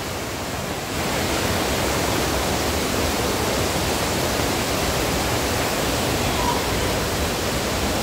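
Steady rush of water from the canyon's waterfalls and stream, an even noise that grows a little louder about a second in.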